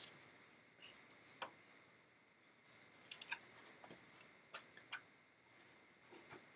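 Faint, scattered scratchy rubs and ticks of waxed sinew being drawn through a hole in a wooden kayak frame and wrapped around the frame-to-gunwale joint.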